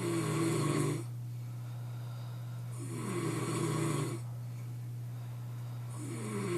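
A man snoring, one long snore roughly every three seconds, each starting with a rising pitch, over a steady low hum.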